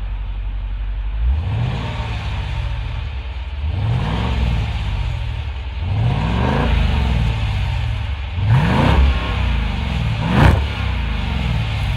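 6.4-litre Hemi V8 of a 2017 Jeep Grand Cherokee SRT, heard at its exhaust tips, idling and revved about five times, each rev rising and falling in about a second. The rev near the end is the loudest.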